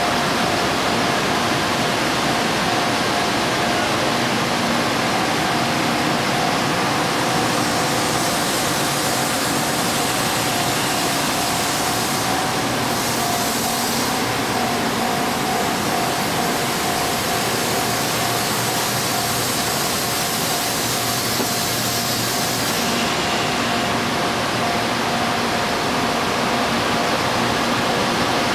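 N700A Shinkansen train rolling slowly over a level crossing: a steady rushing noise, with the crossing's warning bell ringing on one repeated tone.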